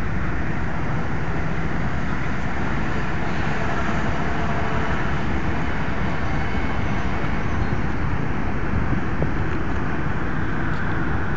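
The ANEK Lines car ferry Lissos's diesel engines rumbling steadily while she manoeuvres into port.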